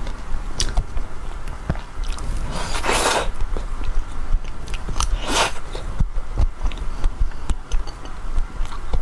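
Close-up eating sounds from a matcha ice cream cone: soft chewing and small mouth clicks, with two louder mouth noises, each about half a second long, about three and five seconds in.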